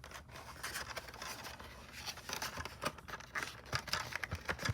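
Hands handling DVD packaging: irregular plastic crinkling, rustling and small clicks.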